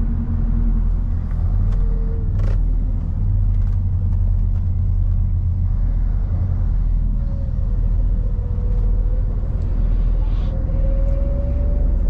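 Lorry engine and road noise heard inside the cab, a steady low drone. A single click comes about two and a half seconds in.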